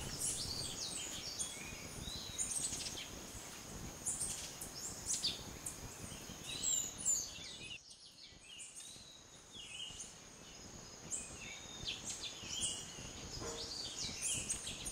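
Rainforest ambience: many short, high chirping calls, birds among them, over a steady high-pitched tone. A low background rush drops away for a couple of seconds about halfway through.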